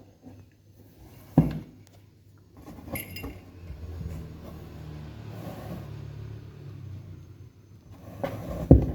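Kittens playing in a cardboard box, knocking against it: a sharp knock about one and a half seconds in and another near the end, with a light clink around three seconds. A low steady hum runs through the middle.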